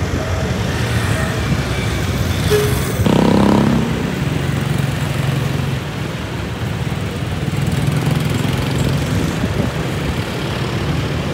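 Motor vehicle engines running steadily, like road traffic, with a louder pitched engine or horn-like sound about three seconds in.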